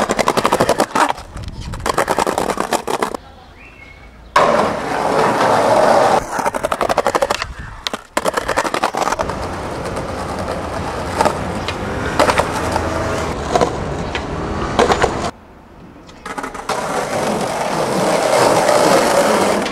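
Skateboard wheels rolling over concrete and paving, with sharp clacks of the board popping and landing. The sound cuts off and changes abruptly a few times as one take gives way to the next.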